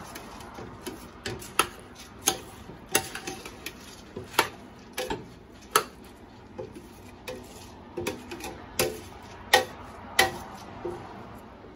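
Metal slotted spoon stirring rice through spices in a stainless steel stockpot, clinking against the pot's side and bottom in sharp irregular knocks about every three-quarters of a second, with the grains scraping in between.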